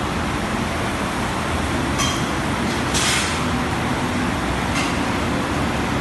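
Hood-type commercial dishwasher running with a steady rumble, with a few brief hisses, the loudest about three seconds in.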